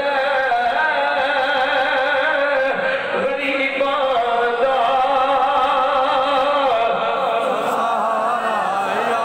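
A man singing a naat (devotional Urdu praise-song) alone into a microphone, with long held, wavering notes and slow melodic turns.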